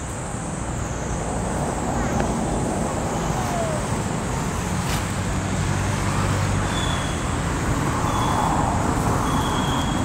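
Steady outdoor background noise with a low rumble like road traffic and a constant high-pitched whine over it; three short high chirps come near the end.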